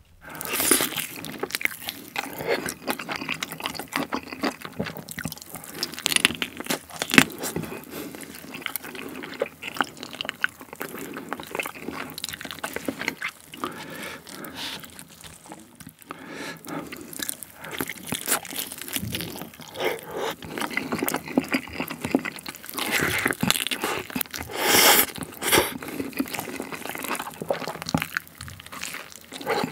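Close-miked eating sounds: wet chewing and crunching, with bites into a seasoned chicken drumstick and gloved hands handling the food. The crackling is loudest in a few clusters, about 7 seconds in and again from about 23 to 26 seconds.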